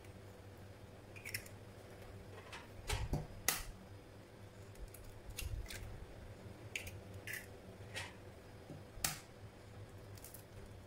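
Eggshells being cracked and pulled apart by hand over a ceramic bowl: faint, scattered sharp clicks and crackles, with a few soft knocks.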